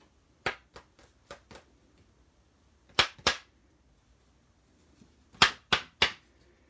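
Sharp taps on a piece of black cardstock, knocking the loose white embossing powder off it: a run of light taps, then two louder ones, then three more near the end.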